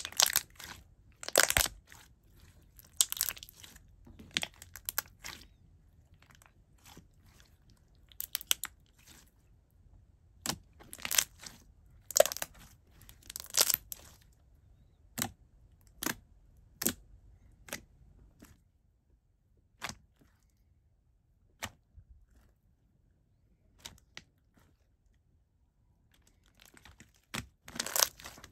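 Hands squeezing and kneading a watery, jiggly milky-clear slime, making irregular sharp clicks and pops as air pockets in the slime burst. The pops come in clusters, thin out to a few isolated ones for several seconds past the middle, and pick up again near the end.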